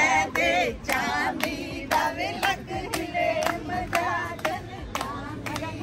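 A group of women singing and chanting together to steady hand clapping, about two claps a second.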